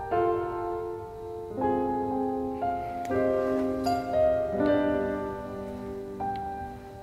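Slow, sombre background piano music, held notes and chords changing every second or so.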